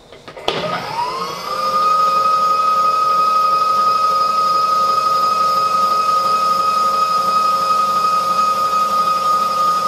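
Milling machine table power feed motor starting up about half a second in. Its whine rises quickly in pitch, then runs steady and high-pitched as it drives the table across.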